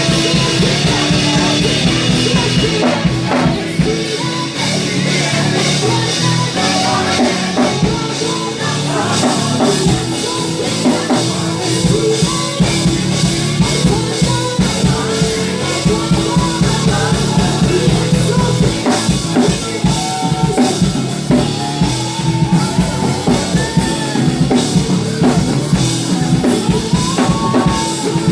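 Live gospel praise band playing an upbeat song with a full drum kit, bass and keyboard, with some singing mixed in.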